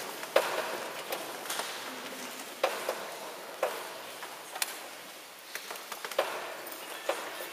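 Scattered small knocks and clicks at irregular intervals, about one a second, over quiet room noise: people shifting about and handling things while waiting.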